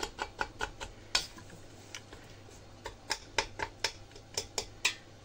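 Light clicks and knocks of a stainless-steel pot and its handle as a hand works chicken pieces in it: a quick run of about six taps, a pause of a second or two, then about eight more.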